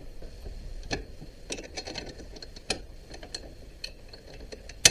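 Scattered light metallic clicks and taps as mounting bolts are pushed through an ATV hitch and rear axle housing, with one sharper, louder clack near the end.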